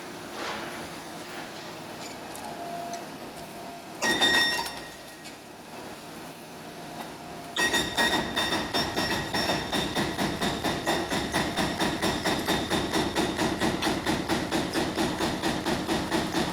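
Demolition excavator working: a single loud metallic clank about four seconds in, then a steady, rapid clatter of about five metallic strokes a second from about halfway through.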